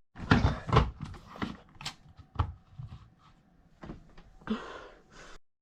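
Irregular knocks, clicks and rustling in a small room, with a short rustle near the end before the sound cuts off suddenly.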